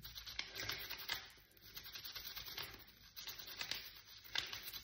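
Toothbrush bristles scrubbing a tarnished silver bangle: a faint, rapid scratchy brushing in short spells with brief pauses.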